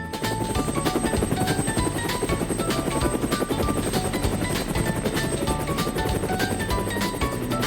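Light background music of short melody notes over a fast, steady, rhythmic engine-like sound effect.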